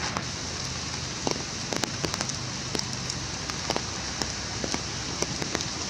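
Rain falling on forest foliage: a steady hiss with many irregular sharp drips striking leaves and branches close by.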